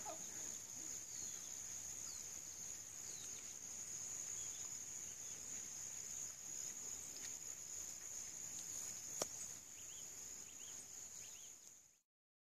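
Steady high-pitched drone of insects in the grass, with scattered faint bird chirps and a single sharp click about nine seconds in; the sound cuts off abruptly near the end.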